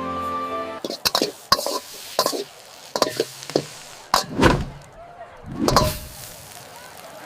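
A string of sharp knocks and clatter, with two heavier thuds about four and six seconds in, after a short bit of music at the start.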